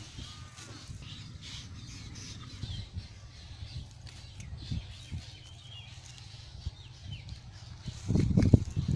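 Outdoor ambience: faint bird chirps over a low steady rumble, with a cluster of louder rustles and knocks near the end.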